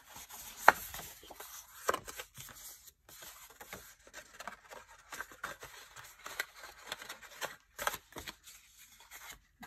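Cardstock being handled: a folded card and paper envelope rustling and sliding in the hands, with a few sharp paper snaps or taps, the loudest one about a second in.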